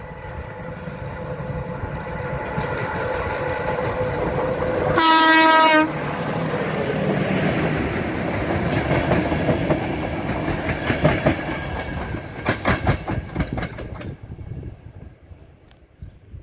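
CFR passenger train passing close by. Its locomotive sounds one horn blast of about a second, roughly five seconds in, then the coaches roll past with a fast clickety-clack of wheels over rail joints that fades out near the end.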